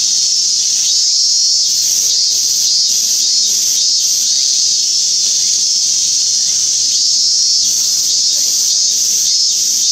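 Cicada, taken for a Minmin-zemi (Hyalessa maculaticollis), singing a loud, unbroken high buzz. A higher pulsing beat of about two a second rides on top from about two to four seconds in and again near the end.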